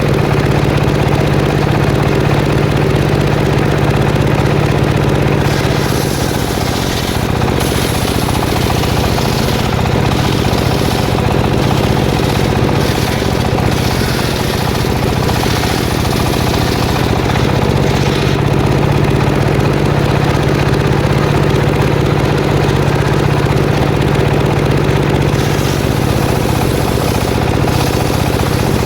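Engine-driven circular saw running loud and steady, then cutting into jackfruit wood from about six seconds in for roughly ten seconds, the engine note shifting under load and the blade adding a harsh, high rasp. The saw runs free again, then makes another short cut near the end.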